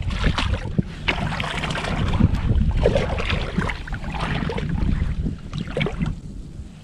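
Shallow muddy water splashing and sloshing around a wader's legs and hand, in many short irregular splashes, with wind buffeting the microphone underneath. It quietens in the last second.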